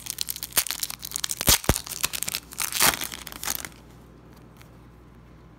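A foil Wacky Packages sticker pack wrapper being torn open and crinkled by hand: a dense crackling for about three and a half seconds, loudest near the middle, then it stops.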